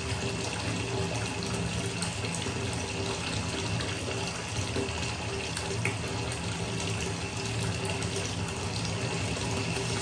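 Bathtub tap running, its thin stream pouring steadily into a deep tub of standing water, with a faint steady hum underneath.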